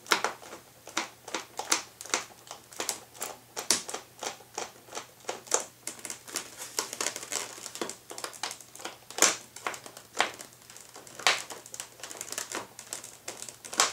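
Small screwdriver turning wing-mounting screws down through a foam model-airplane wing into embedded nuts: a run of irregular light clicks and ticks as the driver and screws work.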